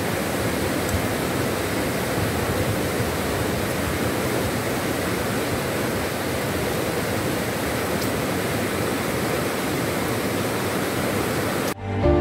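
Whitewater rapids of a rocky river rushing steadily, a dense even hiss with no break. Near the end it cuts off abruptly and background music comes in.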